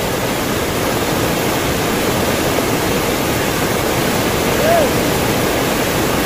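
Fast river current rushing over shallow rapids: a steady, loud rush of water.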